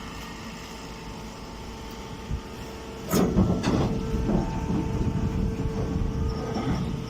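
Hay baler machinery running with a steady hum, then a louder clattering stretch from about three seconds in that eases off near the end.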